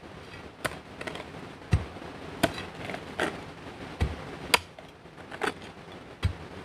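About ten irregular knocks and sharp clicks of hard objects striking, some with a dull low thud, spaced about half a second to a second apart.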